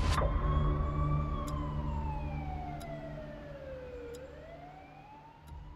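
A wailing siren in one slow cycle: it rises in pitch for about the first second, falls for about three seconds, then starts to rise again, fading as it goes. Under it runs a low steady drone, with faint ticks about every second and a half.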